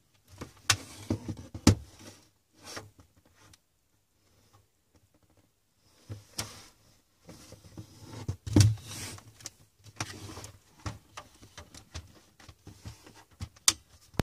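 HP Compaq CQ56 laptop's plastic case being handled and turned over on a desk: scattered knocks, taps and clicks, with a pause of about two seconds after the first few. The loudest thump comes a little past halfway, with another sharp click near the end.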